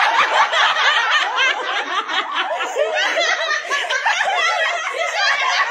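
A group of women and children laughing together, several voices at once, mixed with a little chatter.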